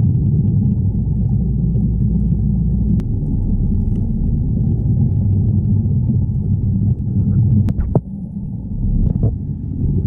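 A steady, muffled low rumble with almost nothing in the higher range, dipping briefly about eight seconds in.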